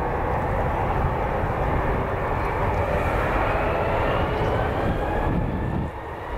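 Jet engine noise from an Airbus A350's Rolls-Royce Trent XWB engines during its landing roll: a steady rushing noise with a faint whine that rises slowly in pitch. The level drops suddenly near the end.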